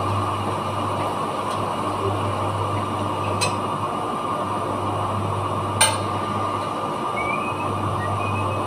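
A steady low machinery hum, with two sharp metal clinks about two and a half seconds apart as a hand tool knocks on the shaft and bearing housing of a dry-cleaning machine's drum. The second clink is the louder.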